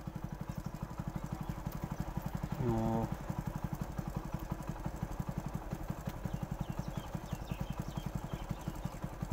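Small single-cylinder commuter motorcycle engine running at low road speed, a steady, rapid beat of exhaust pulses. A short pitched sound cuts in briefly about three seconds in.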